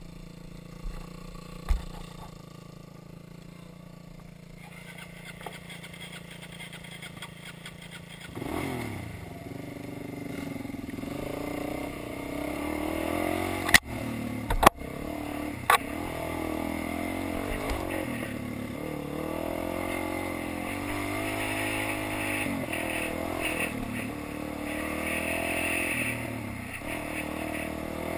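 Dirt bike engine running at low speed, then pulling away about eight seconds in, its pitch rising and falling with the throttle as the bike is ridden along a trail. Three sharp knocks about halfway through.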